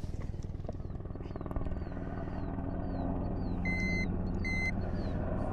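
Two short electronic beeps from a handheld digital fish scale, a little under four seconds in and again about a second later, as it registers the fish's weight, over a steady low motor hum.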